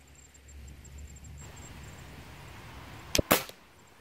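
One shot from a Crosman Phantom .177 spring-piston air rifle about three seconds in: two sharp cracks a split second apart, the shot's report and the pellet striking the paper-plate target, the second louder.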